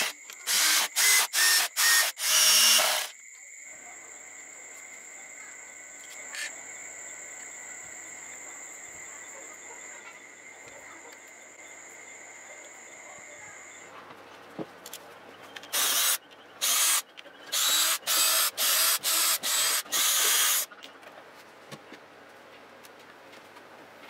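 Cordless drill driving screws in short trigger bursts: about five in the first three seconds, then about seven more from about sixteen to twenty seconds in. Between the two runs a faint, steady high-pitched whine is heard.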